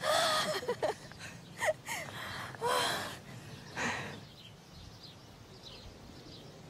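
Several short, loud vocal exclamations and gasps from people over the first four seconds, then a quiet background with faint bird chirps.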